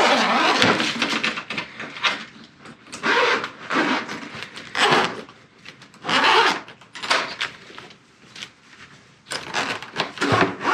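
Suitcase zipper being unzipped in a series of short pulls, with the case being handled between them.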